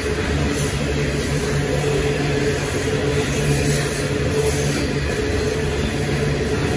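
Loaded coal hopper wagons rolling steadily past, under the steady low hum of the diesel engine of Aurizon locomotive 5023, which is pushing on the rear of the train and coming close.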